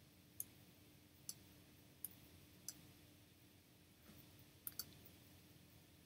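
Six short, sharp clicks at uneven spacing, the last two close together, over a faint steady hum in an otherwise near-silent background.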